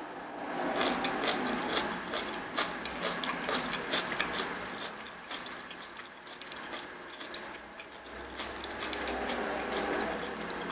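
Close-miked chewing of a mouthful of roasted cauliflower: soft crunching with many sharp, wet mouth clicks, easing off midway and picking up again about eight seconds in.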